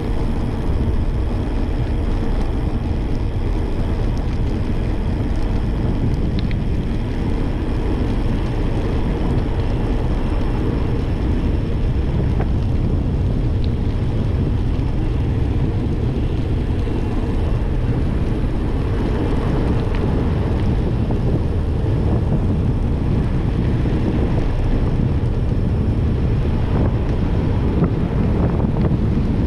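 Steady wind noise on a bicycle-mounted camera's microphone while riding, a dense low rumble with no breaks.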